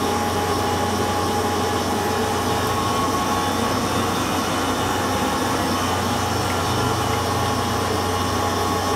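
Oil transfer pump running steadily, pushing new hydraulic oil through a hose into the lift's hydraulic tank: an even, unchanging hum with a thin steady whine above it.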